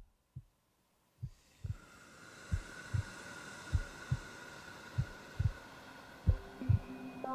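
Heartbeat-like low double thumps, one pair about every 1.3 seconds, growing louder over a faint steady hum. Pitched music tones begin to come in near the end.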